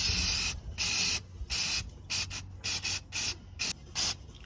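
Aerosol spray can fired in a string of short bursts, about ten, each a sharp hiss with brief gaps between.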